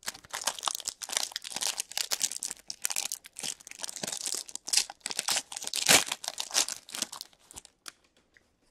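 Shiny foil wrapper of an SPX hockey card pack crinkling and tearing as it is ripped open by hand: a dense run of crackles that stops about a second before the end.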